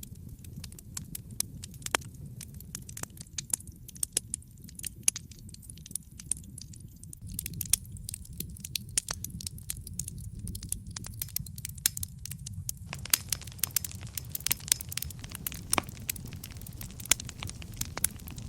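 Fireplace fire crackling: sharp pops and snaps over a low steady rumble. The crackling grows denser and hissier about two-thirds of the way in.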